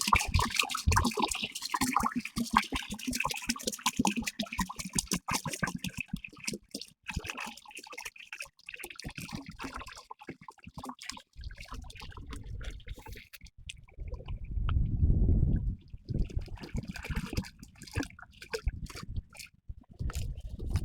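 Liquid being poured into a container, splashing and trickling: water going into a herbicide spray mix. A low rumble comes in about two thirds of the way through.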